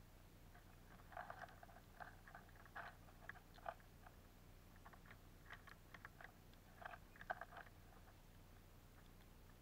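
Eurasian siskins and bullfinches pecking at and husking sunflower seeds close to the microphone: faint clusters of small dry clicks and cracks, in two bouts, over a low steady hum.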